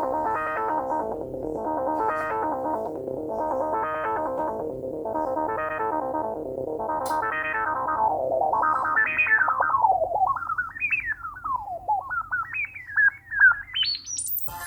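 Korg microKORG virtual-analog synthesizer playing a chord that swells and fades about once a second. From about eight seconds in it changes to a single gliding tone that swoops up and down, then climbs quickly to a very high pitch near the end.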